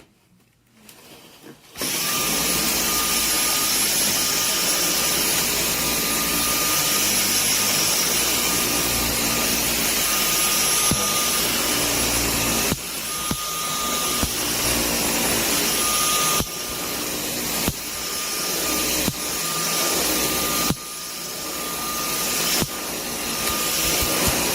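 Dyson cordless stick vacuum switching on about two seconds in and running steadily with a high whine. In the second half its level drops sharply and climbs back several times as it works the rug.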